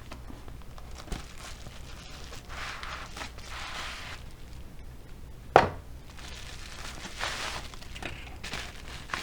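Crinkling of a small plastic parts bag being handled, in soft rustling spells, with a few small clicks and one sharp tap on the work surface about five and a half seconds in.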